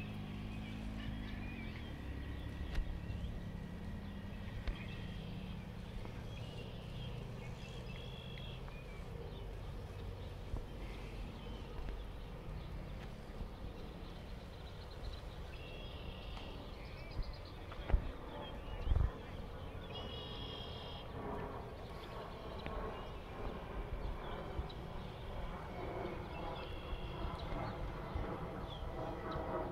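Outdoor ambience with a steady low rumble and scattered short, high bird calls, including a brief cheeping call about two thirds of the way through. Two sharp knocks about a second apart come just before it.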